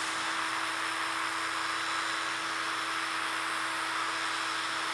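Cordless drill spinning a foam-backed sanding disc against a dyed, turned wooden vessel: a steady motor whine over the even hiss of sanding. The sanding is working out dark spots and lateral sanding lines that would otherwise look like tool marks.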